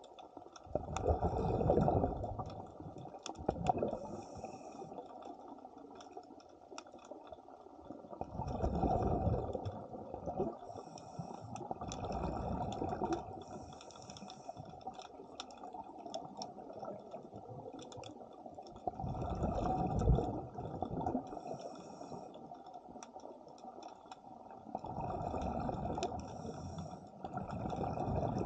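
A diver breathing through a scuba regulator underwater: a loud bubbling rush of exhaled air about every six to eight seconds, with fainter hissing inhalations between, over scattered faint clicks.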